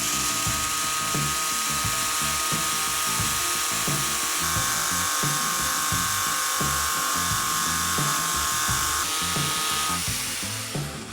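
Angle grinder spinning a sandpaper-faced CD disc against a rusty knife blade: a steady high motor whine with a hiss of abrasive on steel. It stops near the end. Background music with a steady beat plays underneath.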